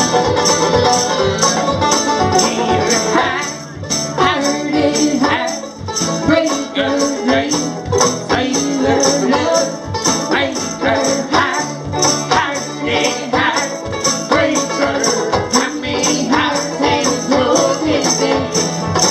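Live acoustic band playing an instrumental break: plucked strings over a steady beat of short, high shaken-percussion strokes.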